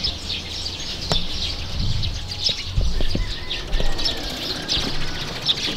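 Birds chirping outdoors: short, high chirps repeated roughly twice a second over a steady low rumble.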